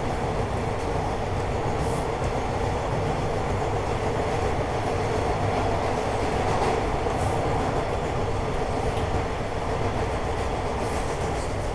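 Toronto subway Bombardier T1 car heard from inside while running between stations: a steady rumbling ride noise with a constant drone.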